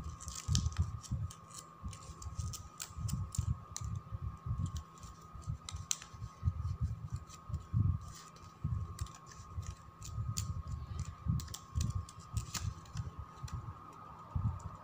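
Glossy ribbon being threaded under a folded petal and worked through by hand: many small crinkly clicks and soft handling thumps at an uneven pace. A faint steady tone runs underneath.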